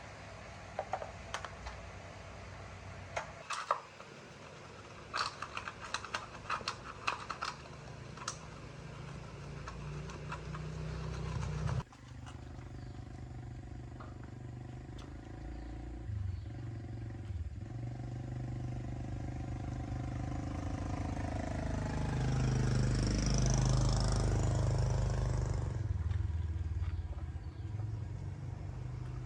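Metal clinks of tools and parts being handled, then after an abrupt change a small motorbike engine running, swelling louder about two thirds of the way through and easing back down.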